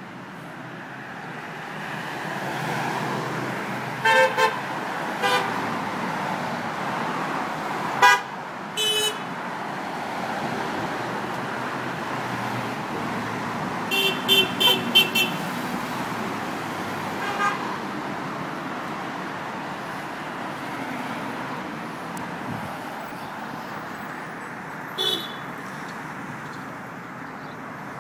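Cars passing on a road while drivers sound their horns in short toots: single honks about four, five, eight and nine seconds in, a quick run of four beeps about halfway through, then single toots at about seventeen seconds and near the end.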